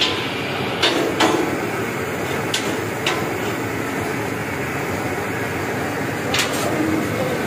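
Metal skimmer clanking against a wok of deep-frying fish: about six sharp knocks at irregular intervals, most of them in the first three seconds, over a steady sizzling hiss of hot oil.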